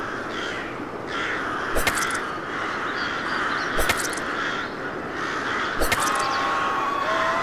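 Crows cawing repeatedly over a steady noisy background, with a sharp crack about every two seconds. A held, wavering tone joins near the end.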